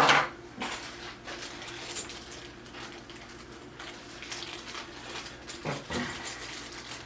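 Small furniture-assembly hardware (cam locks, dowels) being handled: a sharp clatter at the start, then scattered light clicks and knocks as the parts are picked out.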